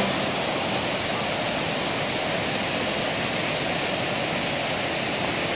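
Waterfall and the white-water creek below it: a steady rush of falling, churning water.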